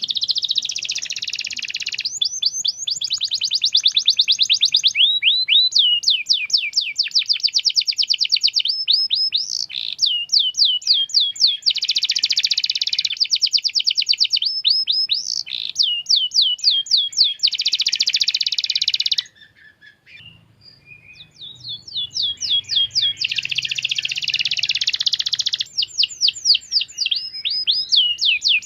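Domestic canary singing a long, fast song of rapid trills and rolling repeated notes. There is a brief break about two-thirds of the way through, and then the song picks up again.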